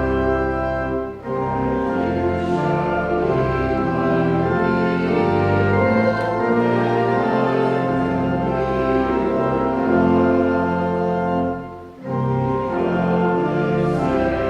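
Instrumental music in full, held chords, organ-like in sound, with two short breaks between phrases: one about a second in and one near the end.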